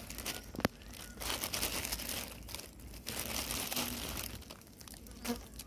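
Crinkling, crackling rustle coming in bursts, with one sharp click about half a second in.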